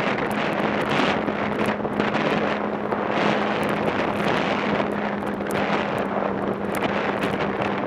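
Snowmobile engine running at a steady cruising speed with one constant drone, under heavy wind rushing over the microphone.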